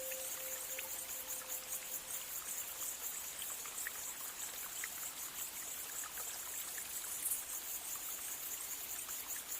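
A steady, high-pitched hiss of background ambience with faint scattered ticks. A lingering ringing tone fades away over the first two seconds.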